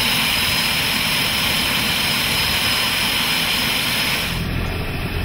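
Beechcraft King Air's PT6A turboprop engine running on the ground close by, its propeller turning: a steady high whine over a rush of noise. About four seconds in this gives way to a lower, duller rumble.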